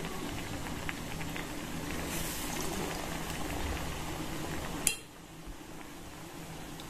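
Battered pumpkin fritters deep-frying in hot oil in an iron kadai: a steady bubbling sizzle. A single sharp click about five seconds in, after which the sizzle is quieter.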